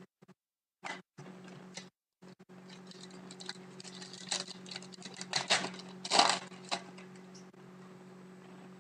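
Hockey trading cards being handled and slid against one another: a few soft clicks, then a run of papery rustling and sliding, loudest about six seconds in, over a steady low hum.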